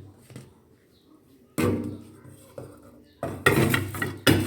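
Clatter of a metal cooking pot as washed rice is tipped into it: a sudden knock that rings briefly, then a run of quick taps, about four a second.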